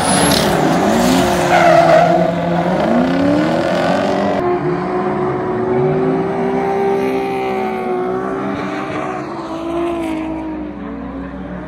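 Drift car engines revving up and down on throttle as the cars slide, with tyre squeal early on, fading somewhat toward the end.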